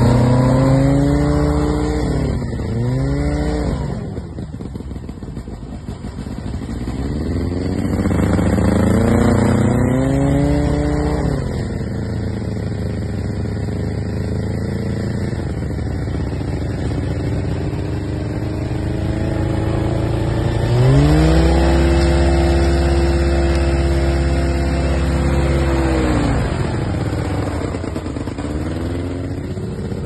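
A boat's motor running, its pitch repeatedly rising and falling as the throttle is opened and eased. It dips lowest a few seconds in, then holds a long, high, loud stretch about two-thirds of the way through before dropping back and revving up again near the end.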